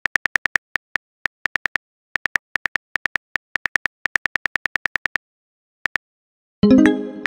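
Phone keyboard key clicks typing in quick, uneven runs, stopping for over a second. Then a message-alert chime sounds near the end, fading out as the clicks start again.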